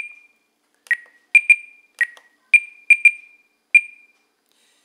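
Short electronic beeps from an RC transmitter as its menus are scrolled and selected, about nine in an irregular run, most at one pitch and a few slightly lower.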